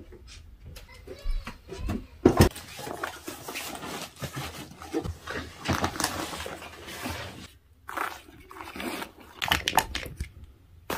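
Packing sounds: a fabric suitcase being handled and small items dropped into a tote bag, with irregular rustling and light knocks and a sharper knock about two seconds in.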